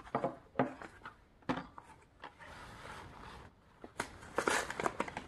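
Cardboard MRE entrée cartons and their ration pouches rustling and scraping as the main courses are handled and slid out: a few short crinkles, then a steady sliding rasp, and a denser rustle about four seconds in.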